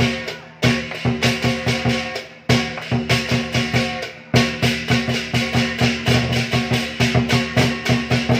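Lion dance drum and cymbal ensemble playing a fast, driving beat of about four to five strokes a second over ringing cymbals. The beat breaks off briefly three times and comes back each time on a strong hit.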